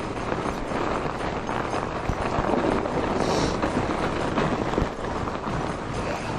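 Fat-tyre bike riding over packed snow: the tyres crunch steadily, with many small knocks and rattles over bumps and a brief hiss about three seconds in.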